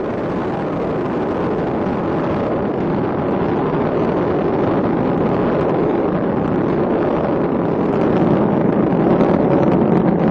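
Space Shuttle Endeavour's rocket engines during ascent: a loud, steady rumbling noise that swells slightly near the end.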